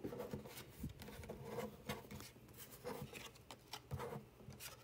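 Trading cards being slid across and picked up off a desk: a string of soft scrapes and light taps.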